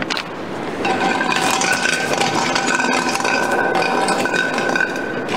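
Draw balls being stirred and rattled together in a pot, a dense clatter of small clicks as they are mixed before the next one is drawn. A few steady tones sound underneath.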